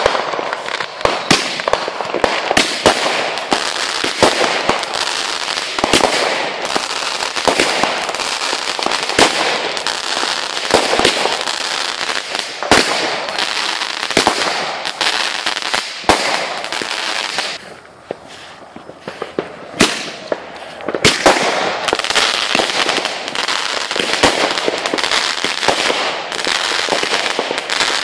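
Fireworks going off in quick succession: a dense, continuous run of sharp bangs and crackling, with a brief lull about two-thirds of the way through before it picks up again.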